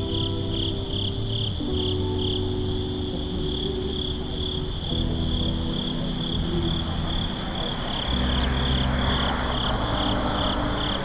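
Crickets chirping in an even pulse, about three chirps a second, over soft background music with sustained chords that change every couple of seconds.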